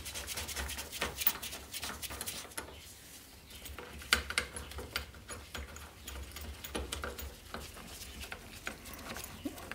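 Irregular small metallic clicks and taps as the loosened housing bolts of a Group 2 Galtech hydraulic gear pump are spun out by hand. The sharpest click comes about four seconds in.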